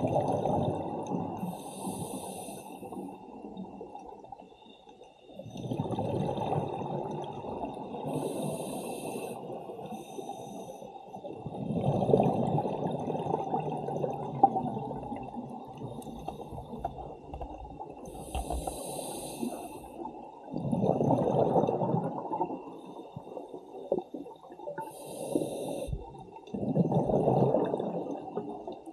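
Scuba divers breathing underwater: a short regulator hiss on each inhale, every six to eight seconds, and long swells of low, gurgling bubble noise as they exhale.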